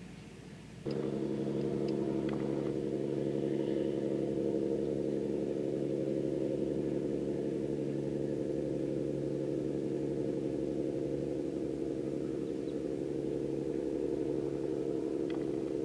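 Vehicle engine idling steadily with a low, even hum, coming in abruptly about a second in.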